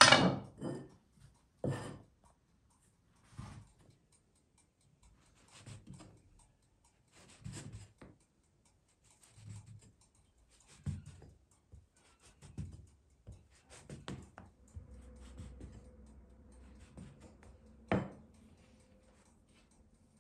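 A glass jar pressed and twisted into rolled dough on a floured wooden board to cut out rounds: soft scuffs and taps about every second or two, with a louder knock at the start and another near the end.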